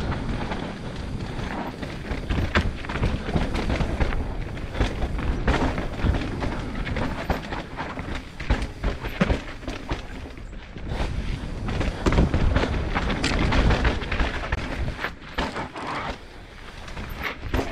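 Enduro motorcycle ridden hard over rocky singletrack: the engine surges up and down with the throttle under heavy wind and chassis rumble. Frequent knocks and clatters come as the wheels strike rocks.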